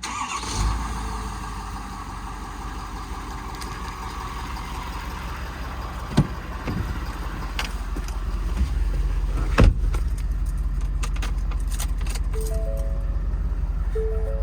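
Ford 6.7 Power Stroke diesel engine starting about half a second in and settling into a steady idle, with a couple of sharp knocks such as a door shutting. Near the end the dash warning chime beeps several times.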